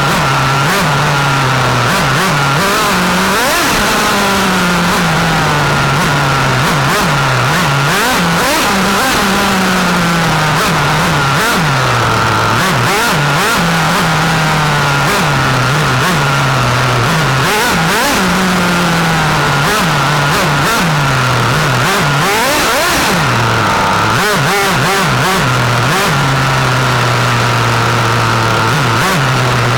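Nitro glow engine of a 1/8-scale radio-control racing car, picked up by a camera mounted on the car, running hard. The pitch rises and falls repeatedly as the car speeds up and backs off, with frequent short knocks.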